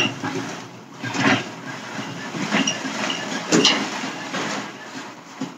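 A Dyson Cinetic Big Ball cylinder vacuum's cord rewind reeling the power cable into the body, with a steady rattling drag and a few sharper clicks as the cable slides over the floor and into the housing.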